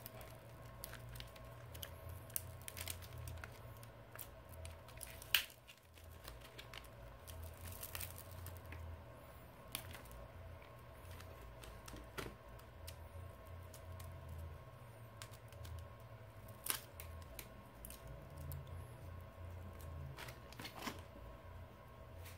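Faint scraping and scattered clicks of a thin plastic pick being worked under a phone's cracked front glass, prying the heat-softened, glued screen up from its metal frame. A sharper click stands out about five seconds in.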